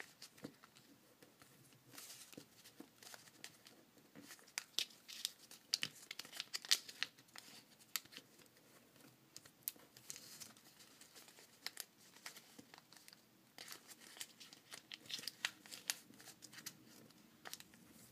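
Origami paper crinkling and crackling in quiet, irregular rustles and small crisp clicks as its flaps are opened, squashed flat and creased down by fingers.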